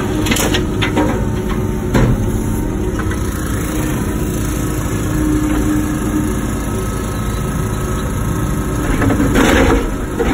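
Wacker Neuson ET145 excavator's diesel engine running steadily while digging, with sharp knocks and clanks about half a second in, at about two seconds and near the end.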